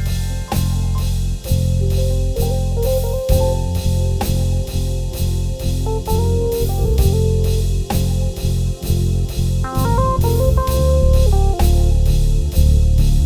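Instrumental worship music played on keyboard: a melody of stepping notes over held low bass chords, with a steady drum beat underneath.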